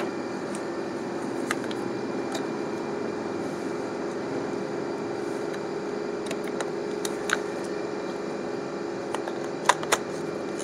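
Faint scattered clicks of a DSLR body and lens being handled as the lens is swapped, two of them close together near the end, over a steady low machine hum.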